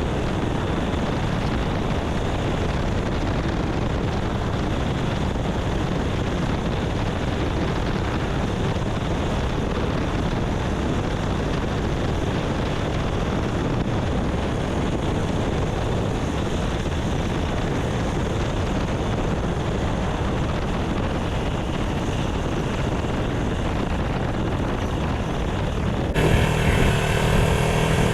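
A steady rushing noise with no clear pitch. About two seconds before the end it cuts abruptly to a motorcycle engine running, the Honda Tornado 250's single-cylinder engine.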